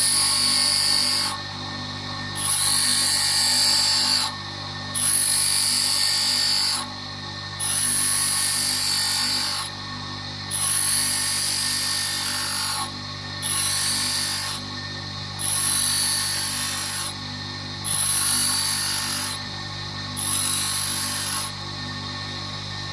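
A grinding wheel sharpening a steel drill bit: a steady motor hum, with the bit pressed to the wheel about nine times. Each contact gives one to two seconds of high-pitched grinding, with short pauses between.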